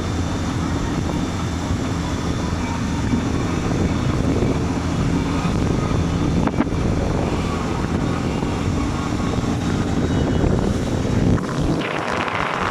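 Parasail tow boat's engine running steadily at speed, with wind buffeting the microphone. About a second before the end the low rumble drops away and a brighter hiss takes over.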